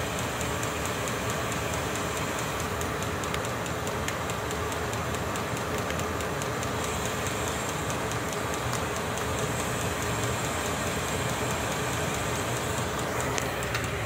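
Vevor 5 kW diesel air heater running steadily: an even whir from its fan with a faint regular ticking, while the heater is still warming up after start-up.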